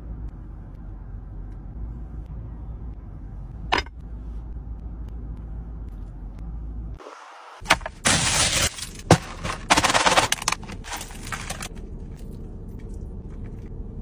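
Aluminium foil crinkling and crackling with sharp snaps for a few seconds past the middle as it is pulled off a platter of food. Before that, a low steady hum with one sharp tick.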